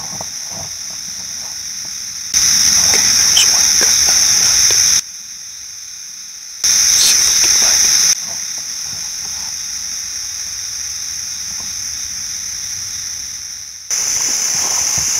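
Steady high-pitched chorus of insects such as crickets or katydids, buzzing without a break. Its loudness jumps up and down abruptly a few times.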